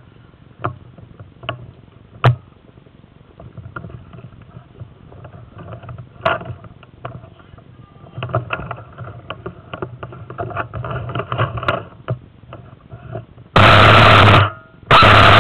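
Airsoft rifle firing two short full-auto bursts near the end, each about a second long and loud, heard close up from a camera mounted on the gun. Before them come scattered sharp clicks and rustling, typical of the rifle pushing through branches.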